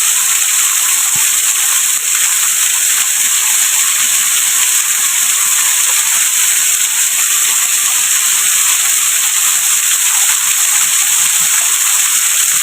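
Himchori waterfall's falling water rushing and splashing in a steady, loud hiss.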